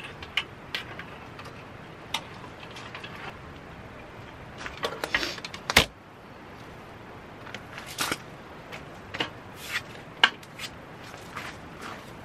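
Scattered clicks and metal clacks of a folding metal IGT-style camping table frame being unfolded and set up, with one sharp louder knock about six seconds in.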